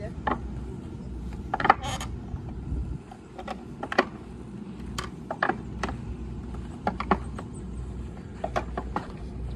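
Metal rings clanking against the pegs and metal bar of a ninja ring-toss obstacle as a climber hangs and moves along it hand over hand: about a dozen sharp, irregularly spaced clinks, some in quick pairs.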